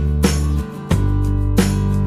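Background music: plucked guitar notes struck about every two-thirds of a second over sustained low bass notes.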